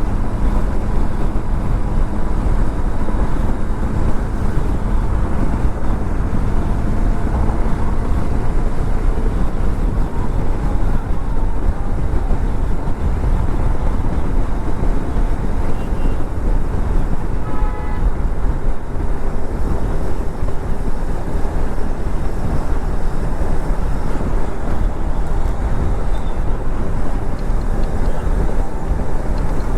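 Honda CB200X's single-cylinder engine running steadily at highway speed under constant road and wind noise. A short horn toot about eighteen seconds in.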